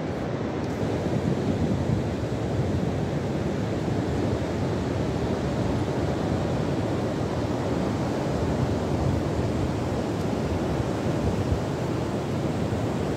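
Ocean surf breaking and washing up onto a flat sandy beach, a steady rush of waves, with some wind noise on the microphone.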